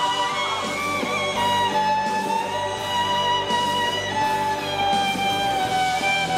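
Electric violin playing a slow melody of long held notes with short slides between pitches, over an accompaniment with lower sustained notes.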